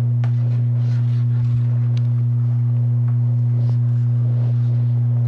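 Steady low electrical hum on the recording, one unchanging low tone with fainter overtones above it, under faint scattered rustles and ticks.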